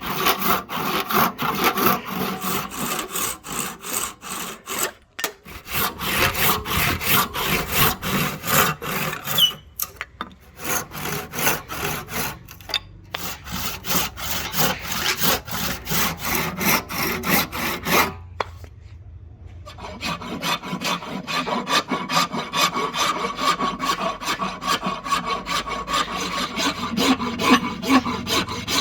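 A hand tool worked on rosewood in quick, regular back-and-forth strokes, rasping or sawing through the hard wood. The strokes stop briefly a few times, pause for about two seconds past the middle, then resume with a finer, more even texture.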